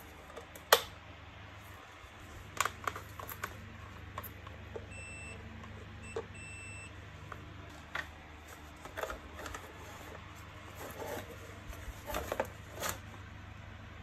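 Hard plastic clicks and knocks from handling the Kärcher WD 3 wet/dry vacuum's plastic motor housing as the motor unit is worked loose and lifted out. Two faint short beeps come about five and six seconds in, over a low steady hum.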